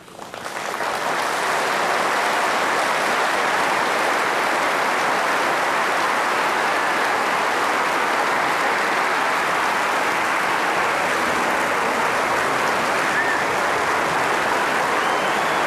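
Large audience applauding: the clapping swells over the first second or two into steady, dense applause.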